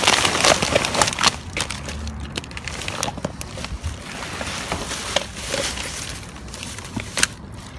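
Plastic garbage bags rustling and crinkling as a gloved hand digs through them, with many small crackles and knocks, loudest in the first second or so. Later a cardboard box is shifted among the bags.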